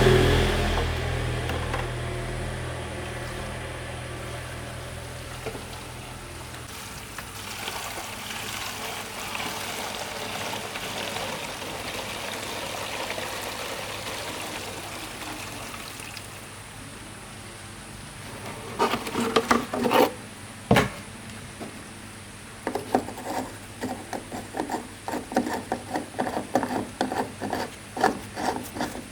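A running engine dies away over the first few seconds. A steady rubbing, scraping sound follows, then from about two-thirds of the way through, a run of irregular knocks and clicks.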